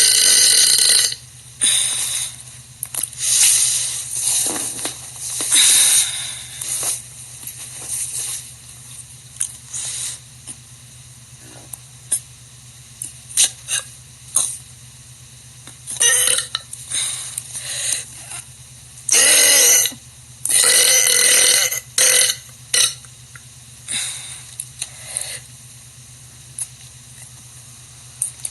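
A young woman burping over and over: a long series of separate belches, some short and some drawn out, with pauses between them. The longest and loudest come about two-thirds of the way through.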